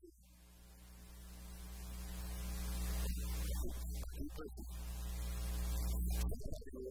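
Electrical mains hum and buzz through a sound system, a steady low drone with a ladder of overtones. It grows steadily louder with rising hiss over about six seconds and drops away sharply near the end. A few brief voices come through partway.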